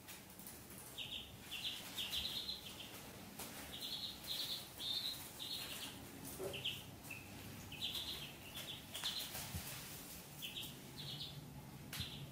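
Ducklings peeping: many short, high peeps in quick runs of two to four, with a few faint clicks between them.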